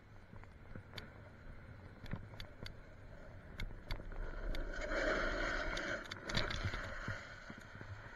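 Skis sliding and scraping over packed snow on a downhill run, growing louder for a few seconds in the middle, with scattered small clicks.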